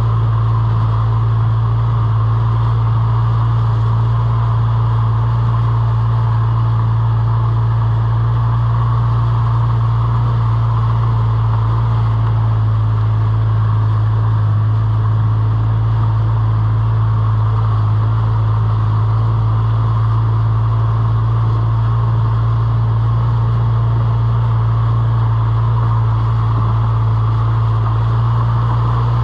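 A motor running steadily: a constant low hum that holds the same pitch and level throughout, with no changes or other events.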